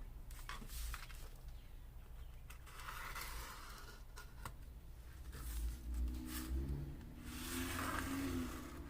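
Cardboard and paper being handled on a work surface: light scrapes and scuffs with a few small clicks.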